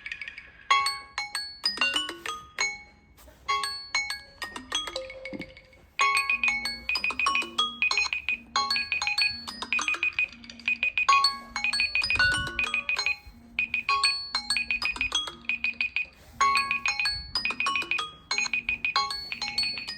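Several smartphone alarm ringtones playing over one another: plinking, marimba-like melodies. About six seconds in, another alarm with a regular repeating beep joins and the whole gets louder.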